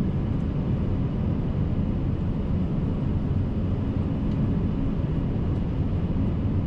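Steady low-pitched cockpit noise of an Airbus A380 on short final approach: air rushing past the flight deck mixed with the hum of the engines.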